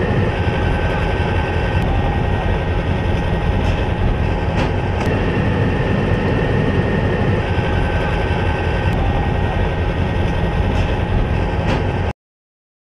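Heavy eight-wheeled military truck's diesel engine and drivetrain running with a steady, dense rumble. It cuts off suddenly near the end.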